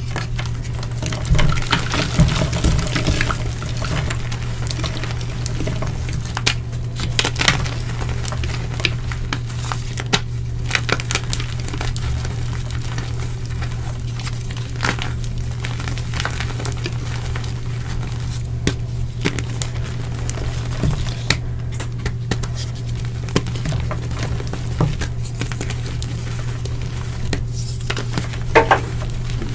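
Hands crushing blocks of dyed gym chalk, with dry, crumbly crunches and crackles that come in irregular handfuls, over a steady low hum.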